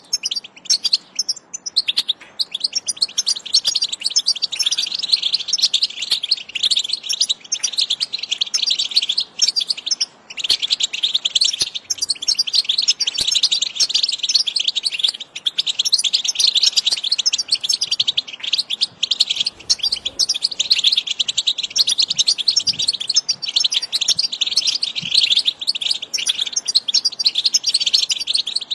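European goldfinch singing: a fast, continuous twittering of high chirps and trills, with a brief break about ten seconds in.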